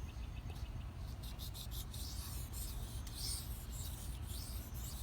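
Knife blade of S30V steel rubbing in repeated short strokes across a Shapton Pro 1000-grit water stone, a gritty rasping scrape, while the 320-grit scratch pattern is being worked out of the bevel.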